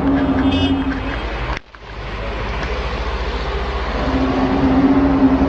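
An unexplained low droning tone, the mysterious 'trumpet' sound, held steady over a deep rumble; the tone stops about a second in, the sound cuts out sharply for a moment, and the drone comes back near the end.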